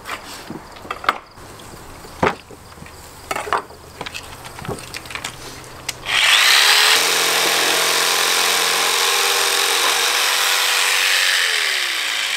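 Scattered knocks and clicks on a wooden board, then about six seconds in an electric jigsaw starts and saws through a cow's leg bone. The jigsaw runs loud and steady, and its pitch drops just before the end as it slows.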